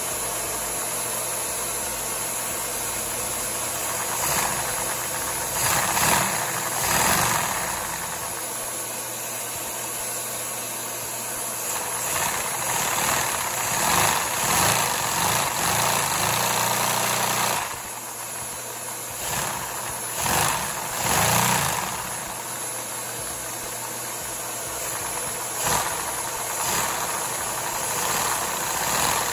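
A four-cylinder LEGO vacuum engine with a narrow-angle VR piston layout running under suction, its plastic pistons and crank clattering steadily. Its sound swells louder several times.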